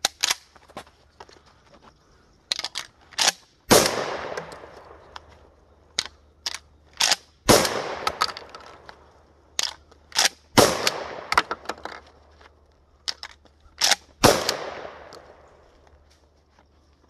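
Remington 870 Wingmaster pump-action shotgun fired four times, about every three to four seconds, each shot followed by a long echoing tail. Between the shots come short sharp clacks of the pump being racked and shells being loaded during speed reloads.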